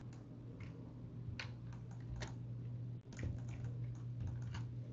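Irregular clicks and taps of a computer keyboard and mouse in use, over a steady low electrical hum.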